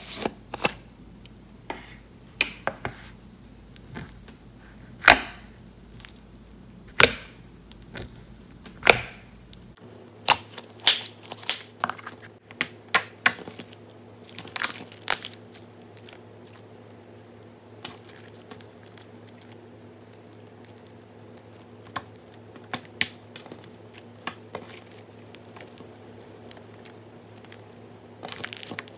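Slime being squeezed and stretched by hand, giving irregular sharp clicks and pops, thickest in the first half.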